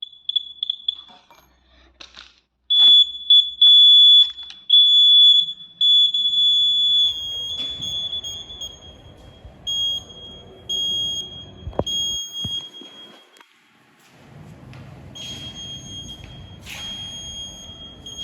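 Buzzer of a homemade laser security alarm sounding a high-pitched steady tone that switches on and off: a few quick beeps, then several long tones of about a second, then shorter regular beeps. A few clicks are heard near the start.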